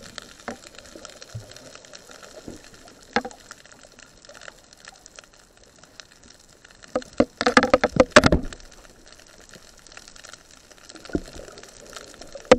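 Underwater sound picked up by a camera in the sea at night: a faint steady hiss with occasional sharp clicks, and a burst of bubbling and crackling about seven seconds in.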